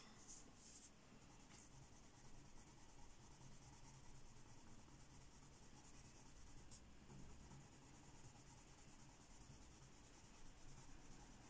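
Faint scratchy rubbing of a Giorgione coloured pencil shading a swatch onto thin photocopy paper.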